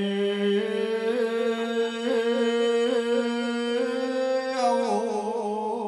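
A singer holds one long, wavering note of a Gujarati devotional song to Meldi Ma, shifting to a new pitch about four and a half seconds in.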